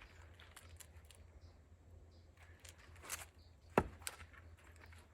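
An axe striking an oak log being split for firewood: a single sharp knock about three-quarters through, with a smaller knock just after and a few faint clicks before it.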